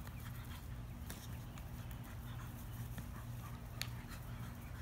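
A dog and a domestic duck scuffling on grass: scattered soft footfalls and a few short, sharp clicks over a steady low hum.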